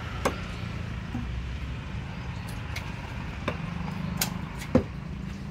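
A heavy cleaver chopping a fish on a wooden chopping block: a few sharp knocks, the loudest near the end, over a steady low motor rumble.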